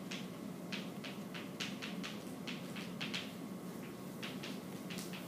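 Chalk writing on a chalkboard: short, irregular scratchy strokes and taps, several a second, over a steady low hum.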